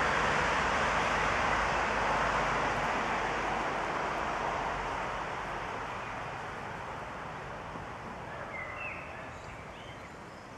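Steady rushing of flowing water, slowly growing fainter. A few short bird chirps come near the end.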